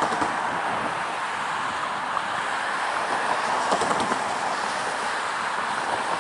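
Approaching Norfolk Southern diesel freight train, a steady noise of locomotive and wheels on the rail, with a few faint clicks about four seconds in.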